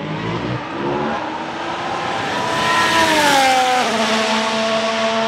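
Ferrari F1-75's turbocharged V6 hybrid engine at high revs as the car accelerates past, growing to its loudest about three seconds in; the pitch then drops sharply and settles into a steady tone as it moves away.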